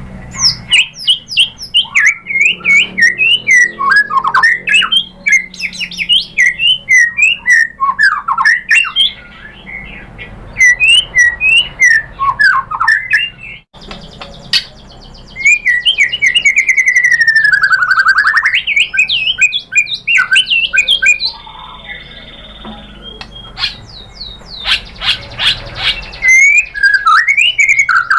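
White-rumped shama (murai batu) singing a loud, rapid, varied song of whistles and chattering notes. After a break about 14 seconds in comes a long run of quick notes sliding down in pitch and back up, then a briefly held steady tone.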